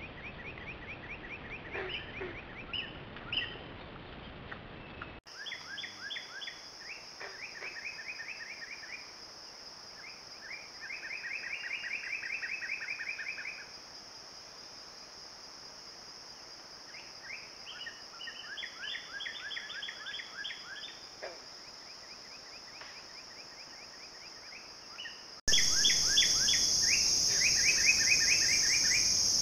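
Songbirds singing in phrases of rapid repeated chirps, several a second, with bouts overlapping, over a steady high-pitched insect buzz. Everything becomes louder near the end.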